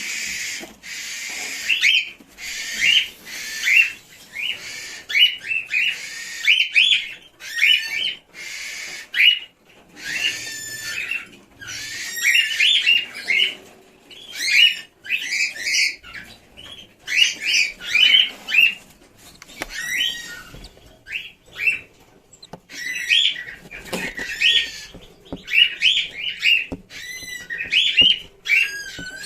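Newly hatched chicks in an incubator peeping continuously, short high-pitched calls several times a second.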